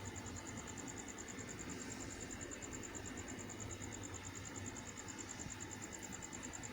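A cricket chirping steadily: a fast, even run of high-pitched pulses, about eight a second, over a faint low background hum.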